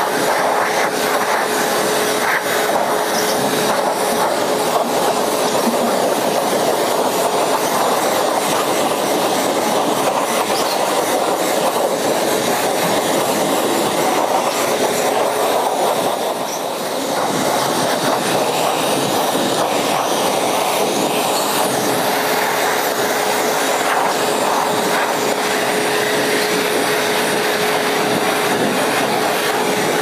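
Wet/dry shop vacuum running steadily, a constant motor whine with air rushing through its hose as the hose is worked over a long-haired goat's coat. It dips briefly about halfway through.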